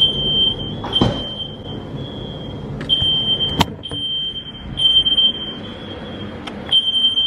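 Smoke alarm beeping: a high-pitched tone repeating in stretches of about half a second to a second with short breaks. A dull thump comes about a second in and a sharp click about three and a half seconds in.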